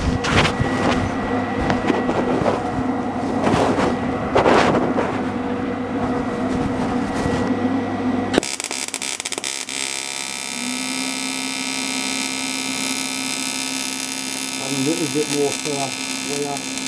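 Clatter and handling noise, then after a sudden change about halfway through, the steady buzz of an AC TIG welding arc melting aluminium on a motorcycle engine casing.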